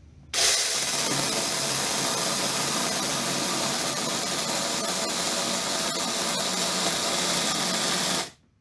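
Mini cordless chainsaw with a brushed electric motor running under load as its chain cuts into a block of wood: a steady whine of motor and chain that starts abruptly just after the beginning and cuts off abruptly near the end.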